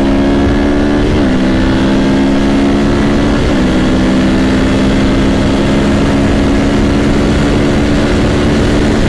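Sport motorcycle engine running under way with heavy wind noise. Its steady note drops sharply twice, about a second in and about three and a half seconds in, as it shifts up a gear.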